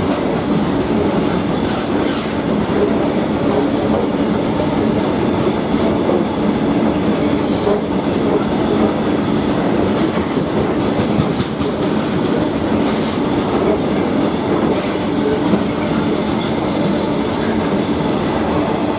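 Wagons of a loaded container freight train rolling past close by: a steady, loud rumble of steel wheels on rail with occasional clicks.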